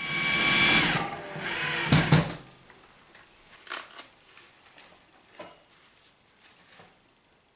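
Hinged 1.5 mm steel flaps of a tea box shelf being handled: a loud metal scrape with a sliding squeal as a flap swings, a sharp clank about two seconds in, then faint clicks and light knocks as tea bags go into the compartment.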